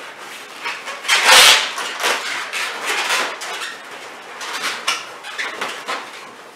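Latex balloons rubbing against each other as balloon flowers are pushed into a balloon tree: a run of short, irregular rubbing scrapes, the loudest about a second and a half in.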